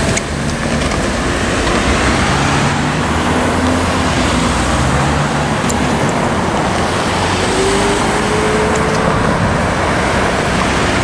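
Road traffic: cars and SUVs driving over the railroad crossing one after another, a steady rush of tyres and engines, with one engine rising in pitch as it pulls away about two thirds of the way through.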